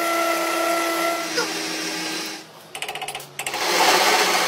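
Metal lathe cutting a spinning steel workpiece. For the first couple of seconds there is a steady whine over the cutting noise. It drops away, a short run of rapid ticking follows, and then a louder, hissing cut starts near the end.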